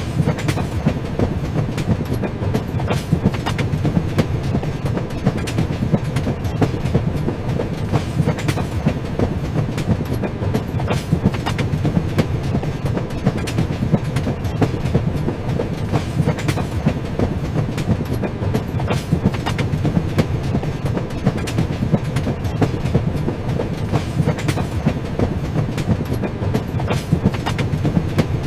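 Train running along the rails: a steady low rumble with many sharp clicks and knocks from the wheels on the track throughout.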